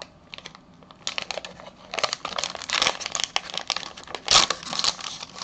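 Foil wrapper of a trading-card pack crinkling as it is torn open by hand: a quiet first second, then a dense run of crackly rustles, loudest near the end.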